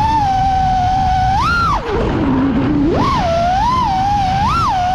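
Ground Control Sky Yacht FPV quadcopter's motors and propellers whining, the pitch following the throttle. It holds steady for over a second, swoops up and back down, sinks low for about a second while the throttle is eased off, then climbs again with several short swells.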